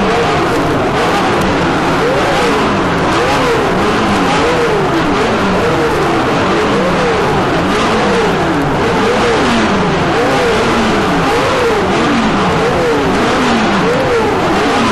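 Several Formula One racing engines revving hard, their pitch climbing and falling over and over about once a second, as a pack of cars pulls away from the starting grid.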